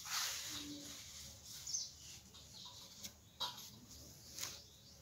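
Paper rustling as a blank sheet is handled and laid flat, with two light clicks in the second half. Faint bird chirps can be heard in the background.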